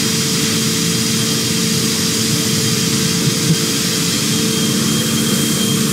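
Steady running noise of a CNC machining center with no cutting going on: an even hiss over a low, steady machine hum.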